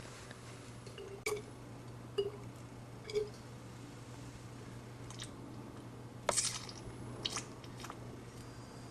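Quiet handling sounds as something is put into a container: a few light taps and clicks, then a short rustle about six seconds in followed by a couple more clicks.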